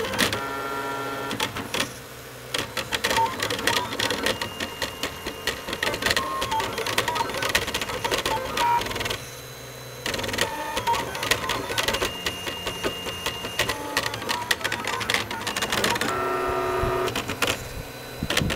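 Ultimaker 3D printer at work, its stepper motors whining in short runs of steady tones that keep changing pitch as the print head darts about, over a dense rapid clicking. The motion sound drops lower twice, about two seconds in and near the middle.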